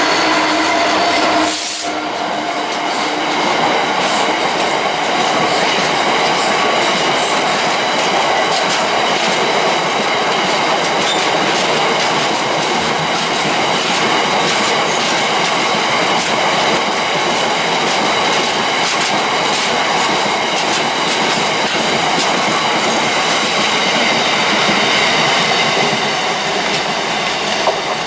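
DB Cargo Class 66 diesel locomotive passing close by at speed, followed by a long rake of box wagons rolling past. The wheels clatter over the rail joints with a steady high squeal.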